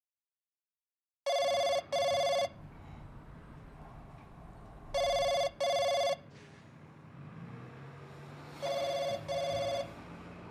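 A telephone ringing in pairs of rings: three double rings about three and a half seconds apart, starting about a second in.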